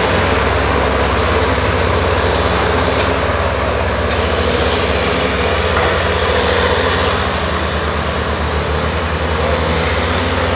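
Tigercat wheeled skidder's diesel engine running steadily with a low drone, easing off slightly about seven seconds in.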